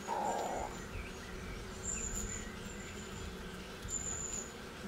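Honey bees buzzing as a steady hum around a frame lifted from an open hive, with a couple of short high bird chirps.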